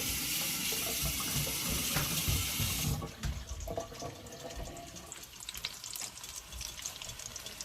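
Kitchen tap running in a steady hiss that shuts off abruptly about three seconds in, leaving a pan of frying curry crackling and sizzling.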